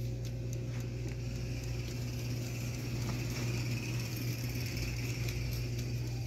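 Countertop air fryer oven running on a cooking cycle at its highest temperature setting: a steady low hum with a faint hiss over it.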